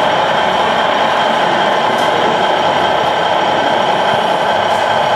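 Radio-controlled model Scania heavy-haul truck driving slowly with a loaded low-loader. Its drive gives a steady mechanical whine that does not let up.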